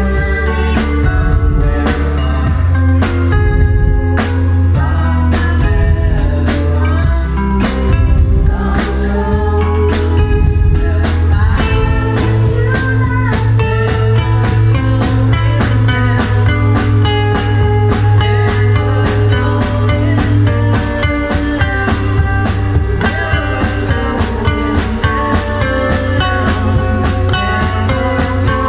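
Live rock band playing: electric guitar over a steady drumbeat on snare, floor tom and cymbal struck with sticks, with a woman singing.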